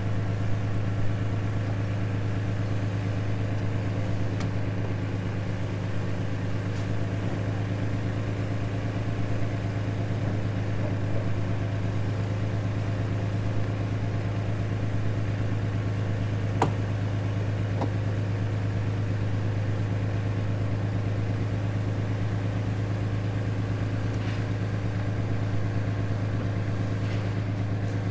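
A boat's engine idling steadily with an even, low hum, one sharp click about halfway through.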